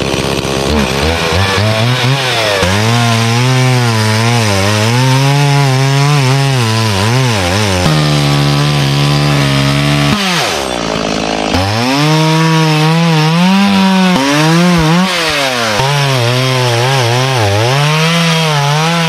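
Stihl MS 180 two-stroke chainsaw cutting through a log, its engine note wavering as the chain bites. About eight seconds in it settles to a steady idle for a couple of seconds, sags lower, then revs back up to cut again.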